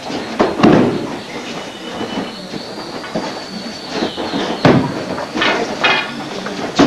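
Aikido students being thrown and taking falls on a canvas-covered mat: repeated thuds and slaps of bodies landing, with shuffling feet between them. The loudest falls come about half a second in, just before the five-second mark, and right at the end.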